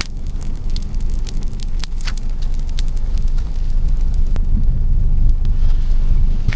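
Wind buffeting the microphone: a loud, steady low rumble, broken by a few scattered sharp crackles.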